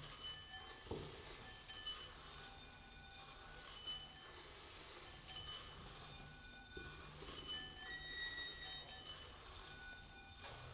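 A thin stream of rice grains pouring from a swinging cone pendulum onto small bowls and a rice-covered floor: a steady hiss of falling grain, with the bowls ringing high and bright in clusters that come and go as the stream sweeps across them. A single soft knock about a second in.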